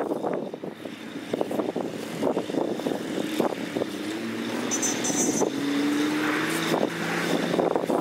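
Komatsu crawler bulldozer's diesel engine running under load as it pushes a pile of soil, with repeated clanks and knocks from its steel tracks and the moving dirt. The engine note rises slightly about halfway through.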